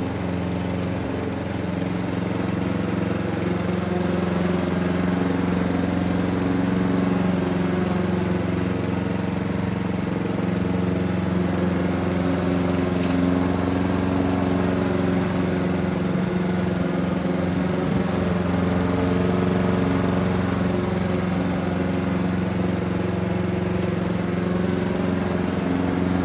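Walk-behind petrol rotary lawn mower running steadily while it is pushed across the grass cutting, its engine note holding even throughout.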